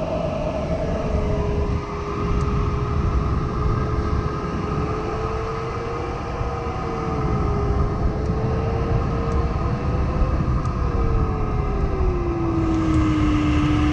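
Steady rush of airflow in a Nimbus 3DT glider's cockpit at cruising speed, with a thin electronic variometer tone that wanders slowly in pitch and drops lower about twelve seconds in.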